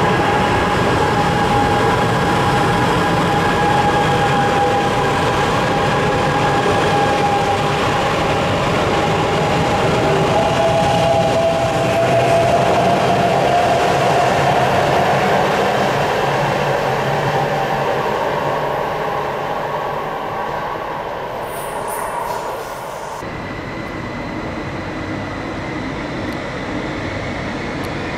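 Electric passenger trains running through an underground station's tunnel: wheels and traction motors with a steady whine, rising in pitch partway through as a train pulls away. Near the end the sound changes abruptly to a quieter rumble with a thin high whine as another train approaches.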